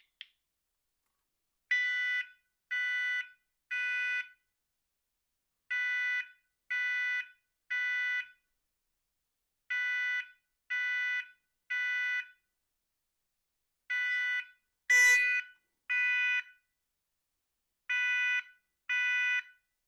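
First Alert smoke alarm sounding its test alarm after fresh AA batteries go in: high-pitched beeps in groups of three, five groups about four seconds apart, the standard three-beep evacuation pattern. A single sharp click about three-quarters of the way through is the loudest sound.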